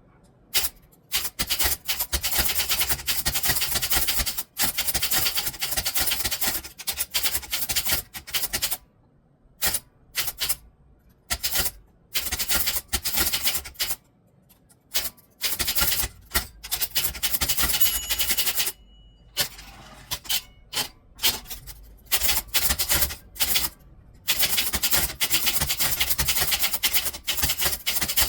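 Typewriter being typed on quickly: rapid key strikes come in bursts of several seconds, broken by short pauses, with a brief high ring partway through.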